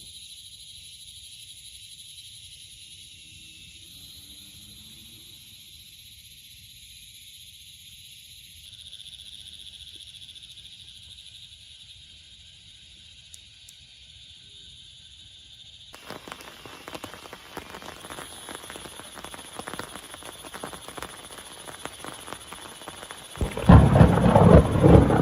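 A steady high-pitched chorus of frogs calling in the rain. About two-thirds of the way in, dense rain patter begins, and near the end a loud, deep rumble of thunder breaks in.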